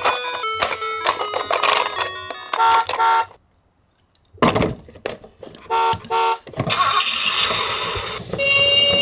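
Toy ambulance sound effects: short electronic beeps in pairs, a stretch of noise, then an electronic two-tone siren alternating high and low starting near the end. Tinkly stepped notes, like a jingle, come before a brief silent gap about three seconds in.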